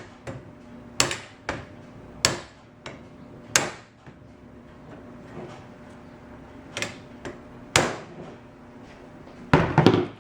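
Hammer blows driving a copper tube sleeve onto an aluminium patio umbrella rib: sharp metallic taps at irregular intervals, a few in the first four seconds, a pause, then more, with a quick cluster near the end as the sleeve is seated at its mark.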